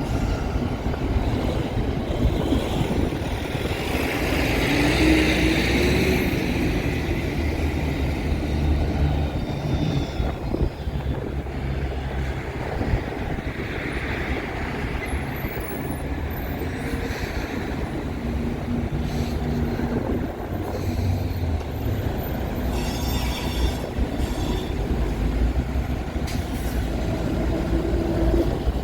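Train rolling past with a steady rumble of wheels on rail. High wheel squeal rises a few seconds in and again about halfway through.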